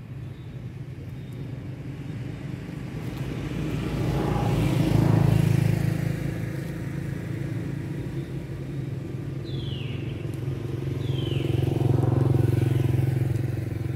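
A motor vehicle engine running steadily, growing louder twice, about five seconds in and again near the end, as if passing by. A couple of short high falling chirps come over it in the second half.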